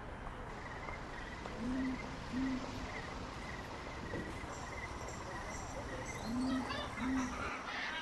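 Night ambience: crickets chirping steadily in a pulsed rhythm, with an owl giving low two-note hoots twice, about a second and a half in and again near the end. Some faint higher bird chirps come in during the second half.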